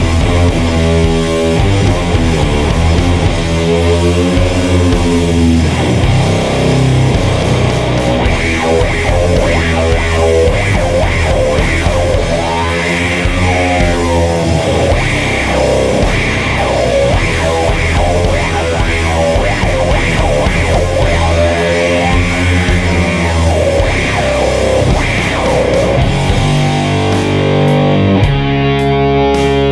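Heavily distorted electric guitar playing slow doom metal riffs with wide string bends, in a fuzzy, saturated tone that blends octave fuzz with HM-2-style chainsaw distortion.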